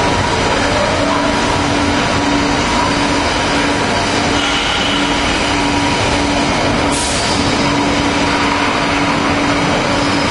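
Steady, loud machinery noise in a steel fabrication shop: a continuous rumble with a steady hum over it, and a short hiss about seven seconds in.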